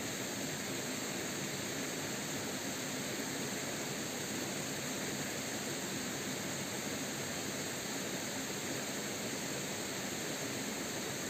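Shallow rocky stream flowing: a steady, even rush of water.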